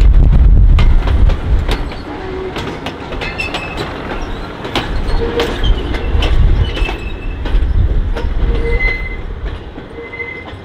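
Walker railmotor rolling slowly past. Its wheels click over rail joints and points, with several short squeals from the wheels on curved track. A heavy low rumble is loudest in the first couple of seconds and then eases.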